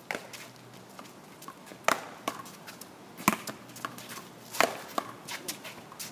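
Paddleball rally: solid paddles smacking a small rubber ball and the ball cracking off the concrete wall. A sharp hit comes about every second and a half, with fainter knocks between them.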